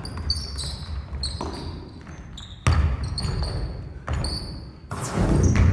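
A basketball being dribbled on a wooden gym floor, with heavy bounces about a second apart. Sneakers squeak sharply and repeatedly on the hardwood as the players cut and jump.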